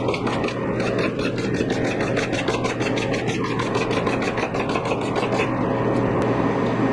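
A hand brush scrubbing the metal fins of a split air conditioner's indoor evaporator coil in quick, even strokes, about five scrapes a second, stopping a little before the end. A steady hum runs underneath.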